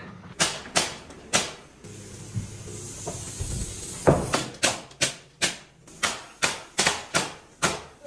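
Pneumatic framing nailer shooting nails up into a wooden header: three shots near the start, a faint hiss, then a rapid run of about three shots a second through the second half.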